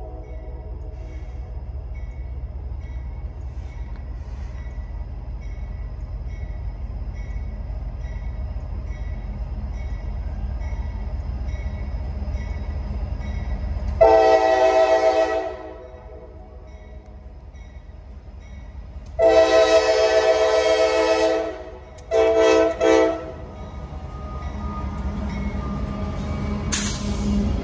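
Approaching CSX freight train: a steady low diesel locomotive rumble that slowly builds, broken by multi-tone air horn blasts. There is one blast about 14 seconds in, a long one about 19 seconds in and a short one just after. Near the end the rumble swells as the lead locomotives pass close by.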